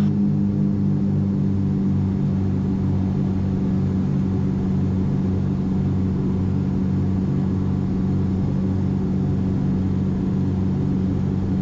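The twin geared, turbocharged Continental GTSIO-520 piston engines and propellers of a Cessna 421C, heard inside the cabin. They make a steady, low, throbbing drone, with the props pulled back to 1900 RPM.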